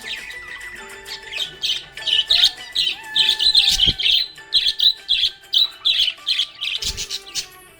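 Budgerigar chirping in a fast, busy run of short, high chirps, several a second, thickening from about a second and a half in and easing off near the end. Two brief low thumps come about four seconds in and again near the end.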